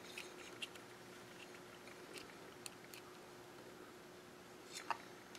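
Faint, scattered small clicks and rustles of hands handling thin wires and multimeter test leads while connecting the meter in series with a coin-cell backup battery, over a faint steady hum.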